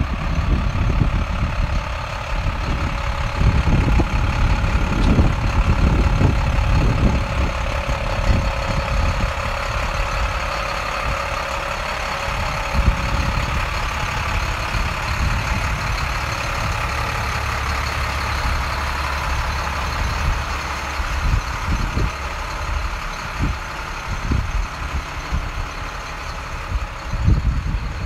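Diesel engine of a 2007 International 7400 truck idling steadily, with irregular low rumbles over it.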